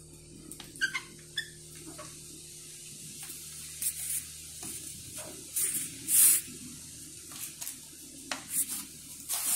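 Hands handling a wooden monitor stand and working a hex key in its bolt: scattered small clicks and taps with brief rubbing swishes, the loudest a little after halfway.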